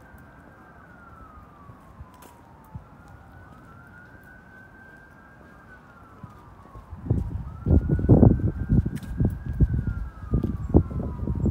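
An emergency vehicle siren wailing, slowly rising and falling in pitch over and over. From about seven seconds in, loud gusty rumbling covers it, like wind buffeting the microphone.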